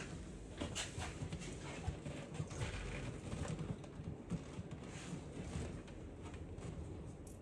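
Irregular small clicks and knocks from hand work: screws and the shifter plate being handled and fitted on the Jeep's console.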